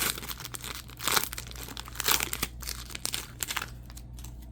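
Plastic wrapper of a trading card pack crinkling as it is handled, in several bursts that stop about three and a half seconds in.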